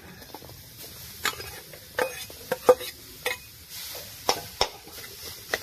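Metal spatula knocking and scraping against a metal kadai as grated coconut is stirred in it, a dozen or so sharp clicks and scrapes over a soft hiss.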